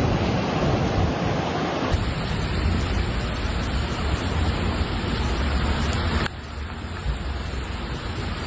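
Steady rushing noise of heavy water in a storm flood, mostly low and even, with no voices, changing abruptly twice as the recording switches.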